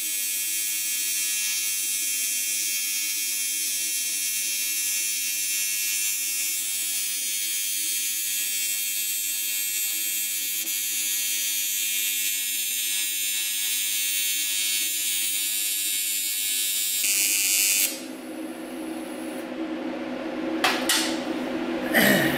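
AC TIG welding arc on aluminum: a steady buzzing hiss that stops about seventeen seconds in. A couple of light clicks follow near the end.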